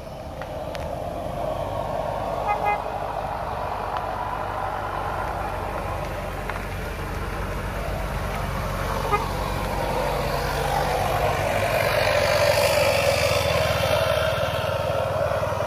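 Motor vehicles passing slowly on the road, engines running and tyres rolling, the traffic getting louder as a vehicle draws close. A short horn toot sounds about two and a half seconds in.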